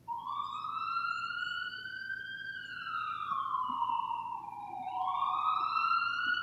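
Police siren wailing: one tone that climbs for about two and a half seconds, slides down to its lowest point about five seconds in, then climbs again.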